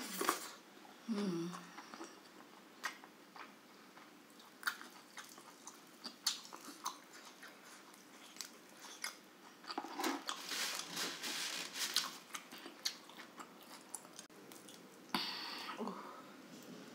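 Close-up chewing and biting of grilled chicken and rice eaten by hand: many wet mouth clicks and smacks, with louder stretches of chewing about ten seconds in and near the end.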